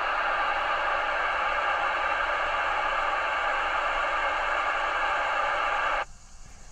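Steady FM static hiss from an Icom IC-2730A two-meter mobile radio's speaker: a weak, noisy signal holding the squelch open. It cuts off suddenly near the end as the transmission drops and the squelch closes.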